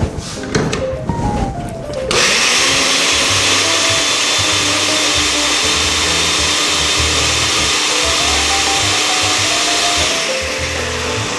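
Countertop blender running steadily, blending boiled spinach with its cooking water into a paste. It starts about two seconds in, after a few handling knocks, and winds down near the end.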